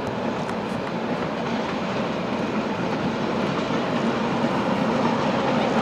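Red Rhaetian Railway metre-gauge electric passenger train rolling steadily across a stone viaduct: an even rumble of wheels on rails that grows gradually louder as it approaches.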